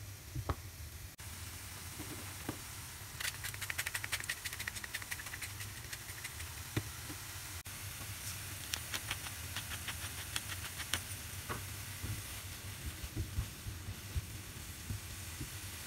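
Diced zucchini, kale and mushrooms sizzling in oil in a frying pan as a spatula stirs them, with spells of crackling about three seconds in and again around nine seconds in. A few light knocks of the spatula on the pan.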